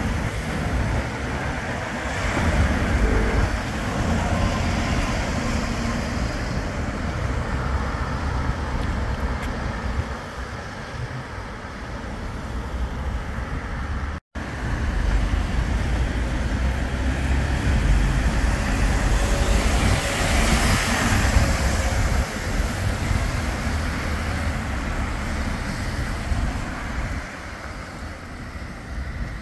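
Town-centre road traffic: an Alexander Dennis Enviro400 City double-decker bus passing, then cars going by on a wet road with tyre hiss, loudest about two-thirds of the way through. Wind buffets the microphone throughout.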